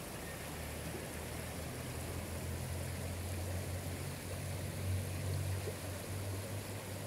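A shallow, rocky mountain river rushing steadily over stones, with a low steady rumble underneath.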